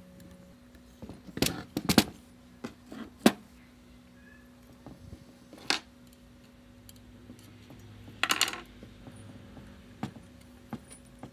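Metal engine parts and hand tools clinking and knocking during reassembly of a chainsaw engine on a wooden workbench. About half a dozen separate sharp clinks are heard, the loudest about two and three seconds in, with a short rattle of clinks near the end.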